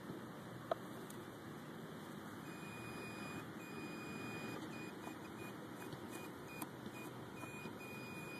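A handheld metal-detecting pinpointer probe gives a steady, high-pitched alert tone, broken by a few short gaps, from a couple of seconds in, as its tip is held against a buried coin in the bottom of a deep hole.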